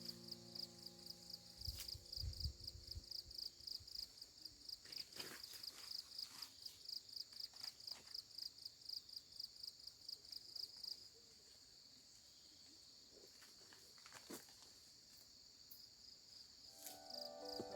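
Faint insect chirping, a high-pitched pulse about three times a second; about eleven seconds in the pulsing stops and a softer steady buzz at the same pitch goes on.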